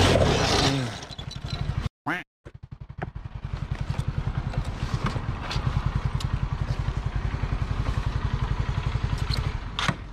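Honda CBR125R sliding along the road on its side after a crash, a rough scraping rush for about the first two seconds. After a short break its single-cylinder engine keeps running at idle with a steady fast pulse while the bike lies on the ground: it has no tip-over cut-off switch to kill the engine.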